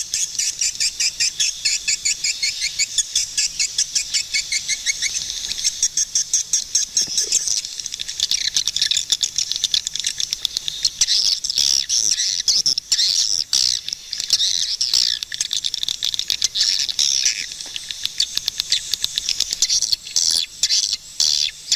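Swiftlets twittering: dense, rapid, high chirps and clicks, evenly pulsed at about four or five a second at first, then thickening into a continuous chatter.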